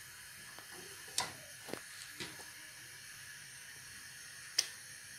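Gas hob burner hissing steadily under an empty frying pan as it heats, with a few short sharp ticks; the loudest tick comes near the end.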